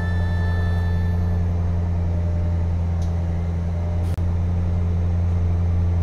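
Adelaide Metro 3000-class diesel railcar running: a loud, steady low engine rumble. The sound drops out for an instant about four seconds in.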